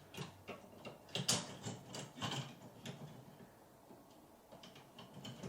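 Scattered small clicks and scrapes as a sconce light fixture is shifted and adjusted level on the wall. They are busiest in the first three seconds and fainter after that.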